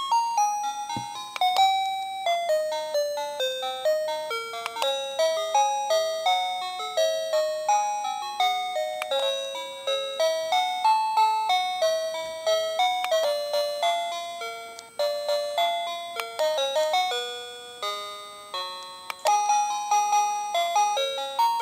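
Plug-in wireless doorbell receiver playing one of its built-in electronic chime melodies: a tune of single bell-like notes at about two or three a second, each dying away. There is a light click about a second in.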